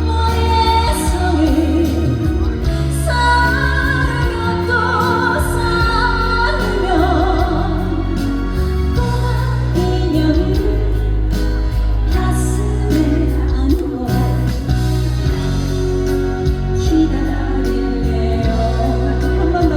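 Female singer singing a slow Korean pop ballad over an amplified backing track, with vibrato on her held notes.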